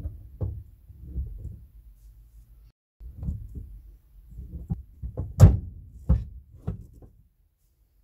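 Original five-speed gear lever and shift linkage of a VW T25 (Vanagon) knocking and clunking in its box under the floor as the lever is moved from gear to gear, a string of separate knocks with the loudest about five and a half seconds in.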